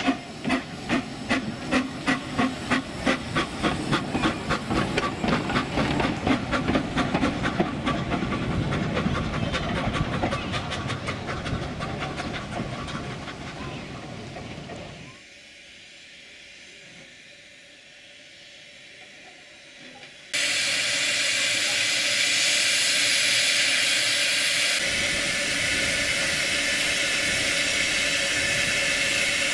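Small steam tank locomotive No. 9 "Tallås" pulling away, its exhaust chuffs quickening and fading as it moves off. After a break comes a steady loud hiss of escaping steam from the standing locomotive.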